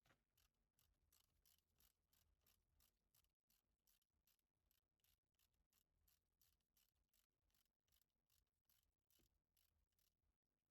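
Near silence, with very faint, regular ticking at about three to four ticks a second.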